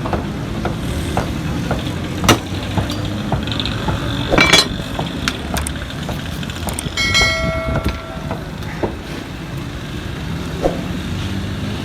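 Steady rumble of busy street traffic, with a few sharp knocks, the loudest about two seconds and four and a half seconds in. A vehicle horn sounds for about a second around seven seconds in.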